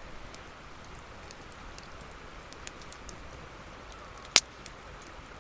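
Wood campfire crackling, with scattered small pops and one sharp, loud pop about four and a half seconds in.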